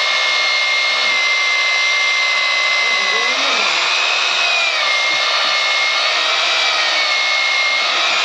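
Buildskill BGBH26RE 1000-watt rotary hammer drill running in plain drill mode with the hammer action off, boring into masonry. Its motor gives a steady high whine; the pitch rises a little about three seconds in, then settles back about a second later.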